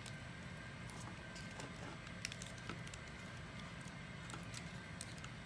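Faint clicks and light knocks of 3D-printed plastic prosthetic-hand parts being handled, with one sharper click about two seconds in, over a steady low hum.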